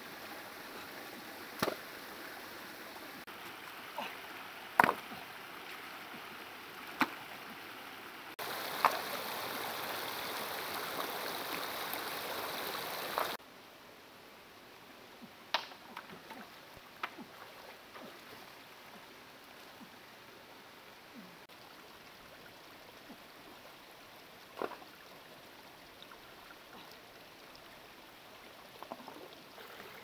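Shallow rocky stream rushing steadily, with a handful of sharp splashes from hands slapping and throwing water. The rush is louder for about five seconds in the middle.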